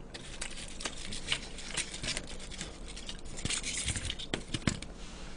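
Chopsticks clicking against plastic food containers and the rustle of a lettuce leaf being picked up for a wrap: a string of small, irregular clicks and crackles.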